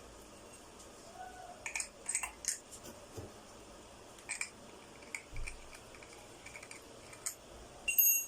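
Scattered clicks and light knocks of hard plastic and metal parts being handled and fitted together while assembling a battery grass trimmer, ending with a brief ringing metallic clink near the end, the loudest sound.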